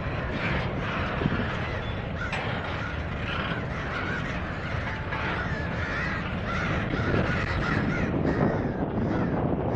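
Crows cawing repeatedly, most thickly in the second half, over the steady low rumble of a long double-stack intermodal freight train rolling past.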